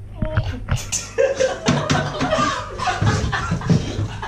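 People laughing and chuckling, after a few short clicks in the first second.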